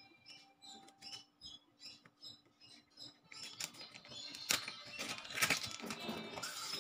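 Thin plastic tofu packaging crinkling and rustling as it is cut open and handled, with sharp plastic clicks and crackles. It gets noticeably louder in the second half.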